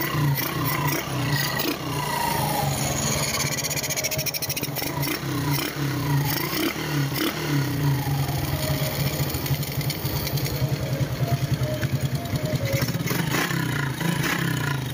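RS125 motorcycle engine running just after starting, freshly filled with synthetic oil, with a steady pulsing exhaust note. Its pitch rises and falls a few times.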